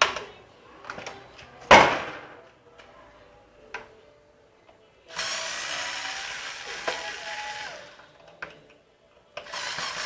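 Parts of a WAP Super pressure washer being taken apart to get at its motor: several sharp knocks, the loudest about two seconds in, then a steady rasping run of a few seconds starting about five seconds in, which starts again near the end.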